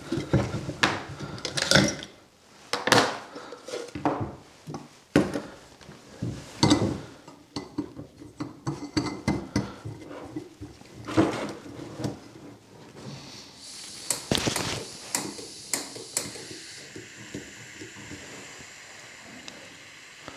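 Irregular clatter and knocks of camping cooking gear being handled on a table: a Jetboil pot, a gas canister and its small stove. A run of sharp, high rattling clicks comes near the end, followed by a steady faint hiss.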